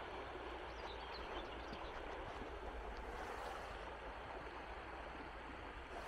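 The Vyun River running over shallow stony rapids, a steady rush of water. A bird gives a few short, faint high chirps about a second in.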